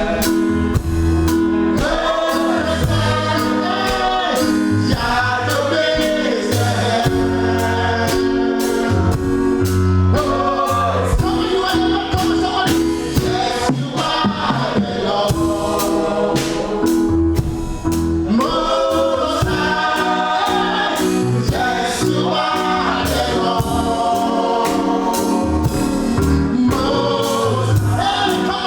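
Live gospel choir singing over a band, with a steady bass line and a drum beat.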